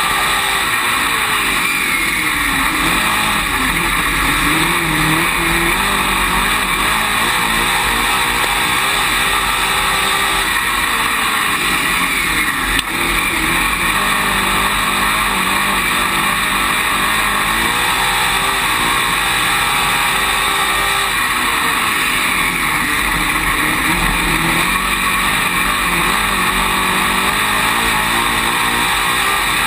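Dirt late model race car's V8 engine heard from inside the cockpit at racing speed. Its pitch rises and falls again and again as the car goes down the straights and around the turns.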